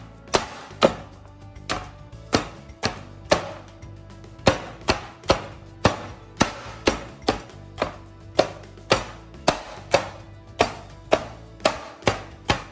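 Whole roast suckling pig (cochinillo) being chopped on a wooden cutting board: sharp chops through the crisp skin onto the wood, about two a second in a steady rhythm.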